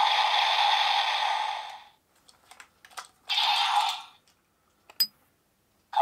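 DX Grease Blizzard Knuckle toy's speaker playing an electronic sound effect that fades out about two seconds in. Then come a few plastic clicks from its button being worked, a short burst of sound from the speaker, and one sharp click near the end.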